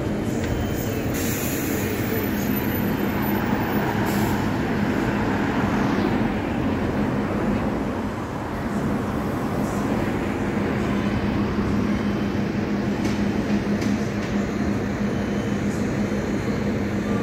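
Road traffic on a busy city street: vehicle engines and tyres running, with a steady low engine hum. The level dips briefly about eight seconds in.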